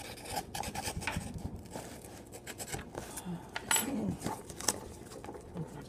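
Hands working at a taped cardboard shipping box: uneven scraping, rustling and light taps on the cardboard as the box is gripped, tipped over and its packing tape picked at.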